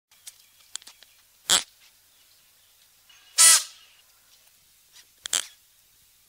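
Klipspringer calling: three short, harsh calls about two seconds apart, the middle one the longest and loudest with a pitched tone through it. A few faint clicks come before the first call.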